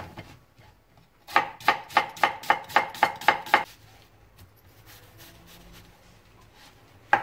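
Chef's knife cutting an onion on a cutting board: a run of about eight even knife strikes on the board, about three a second, then a few seconds of much quieter cutting before the strikes start again near the end.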